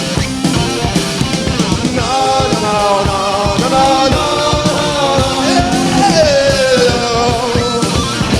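Live rock band playing an instrumental passage: steady drums and bass, with a sustained lead melody entering about two seconds in and gliding down in pitch near the end.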